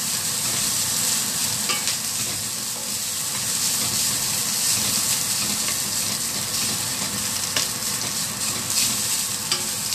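Fried rice with green chillies, garlic and rebon (tiny dried shrimp) sizzling steadily in a stainless-steel wok while a wooden spatula stirs and turns it, with a few light clicks of the spatula against the metal. The flame is too high.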